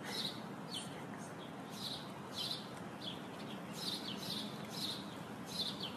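Short, high-pitched chirps falling in pitch, about two a second and irregular, over a faint steady background hiss.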